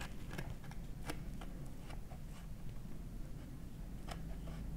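Kitchen knife cutting through crumbly baked lemon slice bars, its blade clicking against a wooden cutting board in a handful of scattered taps over a low steady hum.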